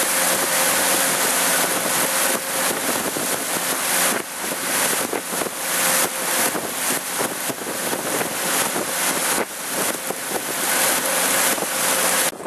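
Strong wind buffeting the microphone over rushing water and wake, with a steady engine drone from a motorboat under way. The drone and wind stop abruptly near the end.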